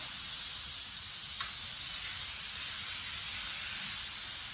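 A car-wash pressure-washer wand spraying water, a steady hiss, with one brief click about a second and a half in.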